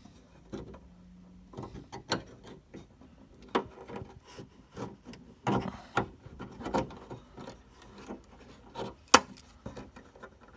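Small flat-head screwdriver digging and prying at the C-clip that holds the lock cylinder in a Honda S2000 door handle. It makes irregular scrapes and clicks, with one sharp click about nine seconds in.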